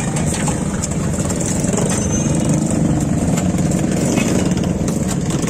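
Steady street traffic noise, with vehicle engines running in a constant low din.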